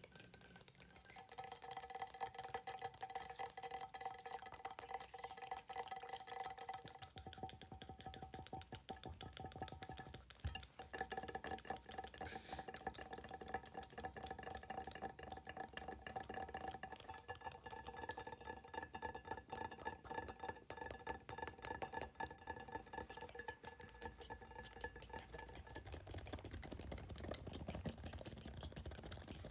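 Very fast fingernail tapping on hard objects, a dense run of light clicks with a faint ringing tone from the tapped surface, layered with mouth sounds. The ringing tone changes pitch about 7 and 10 seconds in and fades out near the end, as the tapped surface changes.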